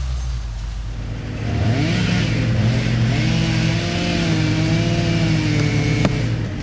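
An engine revs up about a second and a half in, holds at high speed with its pitch wavering, then eases off a little near the end.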